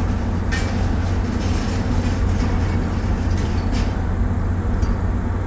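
Steady low machinery hum of a docked car ferry, with a few faint clicks.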